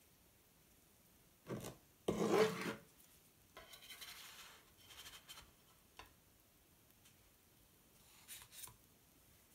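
A spatula scraping across a non-stick griddle plate as it is worked under a pancake, loudest about two seconds in, with a short knock just before as it is picked up. A brief softer scrape comes near the end as the pancake is set down on a serving board.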